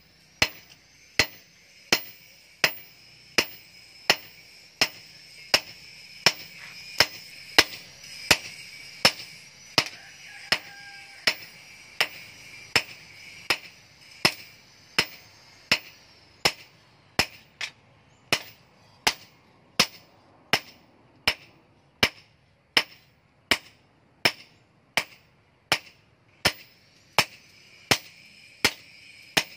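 Hand hammer striking a hot steel kitchen-knife blank on a small steel anvil in a steady forging rhythm, about three sharp ringing blows every two seconds. A steady high-pitched buzz runs behind the blows for much of the time.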